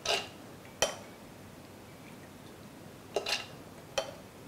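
Steel spoon clinking and scraping against a plastic blender jar and a glass bowl as soaked chana dal is spooned in: four short clinks, one at the start, one just before a second in, a double one a little past three seconds, and one at four seconds.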